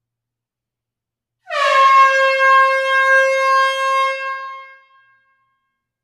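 A single long air horn blast starting about one and a half seconds in. Its pitch drops slightly at the onset, then holds one steady note for about three seconds before fading out.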